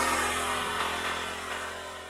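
Road vehicle noise fading away as a vehicle passes and recedes, over a low steady engine hum.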